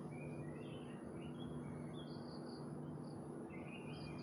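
Small birds chirping in short, scattered notes, with a quick run of repeated high notes about two seconds in, over a steady high insect drone and a low hum.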